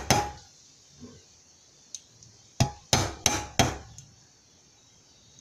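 Hammer striking a nail held as a punch against a stainless steel racing muffler, to drive out a leftover rivet. There is one blow, then a quick run of four blows about two and a half seconds in, each with a short metallic ring.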